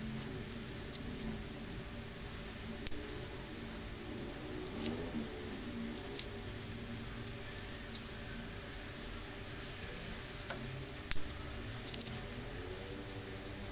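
Light metallic clicks and taps as lead airgun pellets are pressed through a hand-held Greyhound 4.5 mm pellet sizer, one after another. The clicks come irregularly, about one every second or two, with the sharpest near the end.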